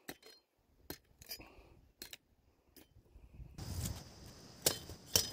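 Machete chopping at thin branches and brush: a string of sharp blade strikes, then rustling of twigs and leaves with a few louder chops near the end.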